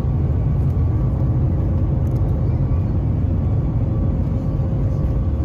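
Cabin noise of a Boeing 737 MAX 8 on its takeoff roll, heard over the wing: its CFM LEAP-1B turbofans running at takeoff power over a steady, heavy low rumble, with a faint steady hum on top.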